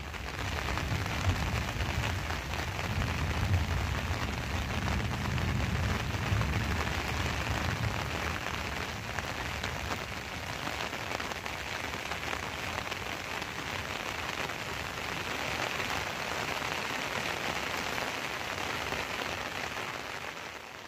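Steady rain falling on foliage, an even hiss that carries on without a break, with a low rumble underneath during the first several seconds.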